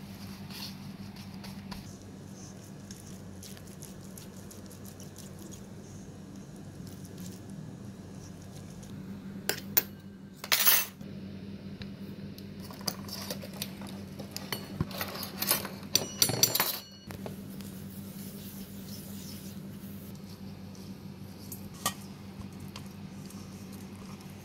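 A spoon clinking and scraping against a stainless steel mixing bowl while marinade ingredients are added: a short burst of clicks near the middle, then a longer run of knocks a few seconds later with a brief metallic ring. A steady low hum runs underneath.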